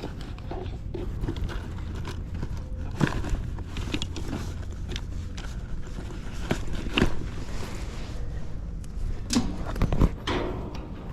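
Sheet-metal access panels of an HVAC unit being handled and fitted back into place: scattered clicks and knocks, with several sharper knocks about three, seven and ten seconds in, over a steady low hum.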